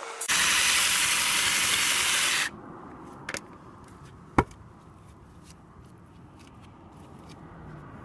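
Cordless electric mini chainsaw ripping lengthwise into a hinoki log: a loud, even hiss of cutting that stops suddenly after about two seconds. It is followed by one sharp knock a couple of seconds later.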